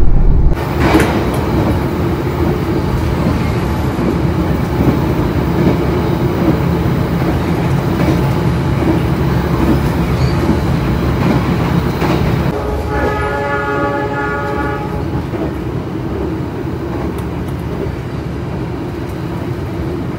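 Passenger train running on the rails, a steady rumble with clicks of the wheels over rail joints. A train horn sounds for about two seconds just past the middle.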